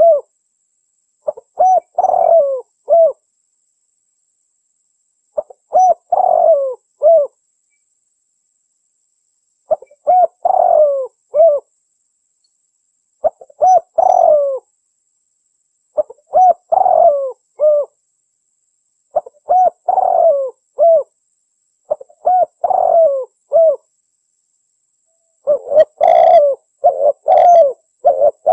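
Doves cooing, played as a hunting lure call: phrases of three or four coos repeat about every three to four seconds with silence between. Near the end the phrases come faster and overlap.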